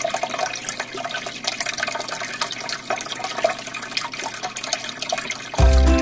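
Aquarium water bubbling and splashing: air bubbles from an airline tube rising and bursting at the surface, a steady crackle of small pops and trickling. Background music comes in near the end.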